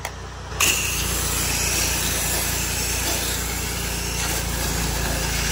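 Pressure washer's engine running steadily, then about half a second in the spray gun is opened and the loud, steady hiss of the jet takes over, spraying the downstreamed sodium hypochlorite mix up the house front.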